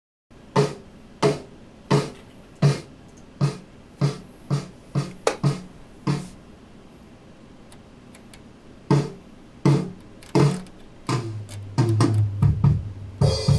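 Single drum hits on an acoustic kit, struck one at a time about once or twice a second with a pause in the middle, then quicker playing near the end over a low sustained note.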